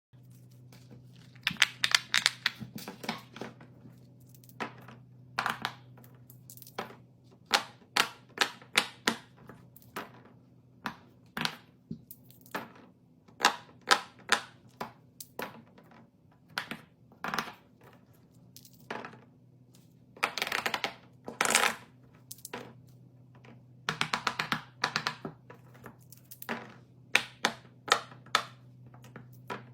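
Irregular clicks, taps and short rustling bursts from small objects being handled and crafted, some in quick clusters, over a steady low hum.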